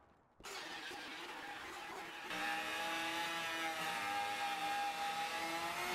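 Electric router with a flush trim bit cutting out a window opening in plywood siding. After a stretch of hiss, a steady motor whine sets in about two seconds in, its pitch wavering slightly as the bit cuts.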